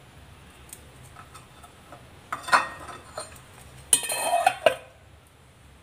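Bamboo grilling-clamp sticks clattering and clinking against a ceramic plate as they are handled and set down, in two short bursts about two and a half and four seconds in, with a few faint ticks before them.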